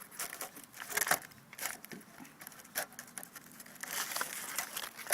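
Scattered crinkling and rustling from handling the thin, caustic-etched aluminium and carbon sheets of a pulled-apart battery cell.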